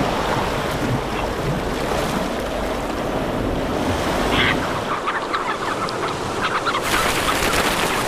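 Sea surf washing on a rocky shore, with a single short bird call about four seconds in. From about five seconds in, a flock of purple sandpipers sets up many quick high chirps over the surf.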